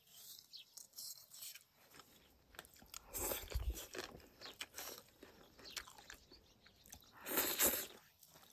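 A person chewing and crunching food close to the microphone, with two louder crunchy bites about three seconds in and again about seven seconds in.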